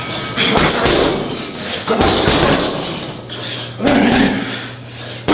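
Strikes landing on a heavy bag: about four hard thuds, roughly one and a half seconds apart, each fading out briefly.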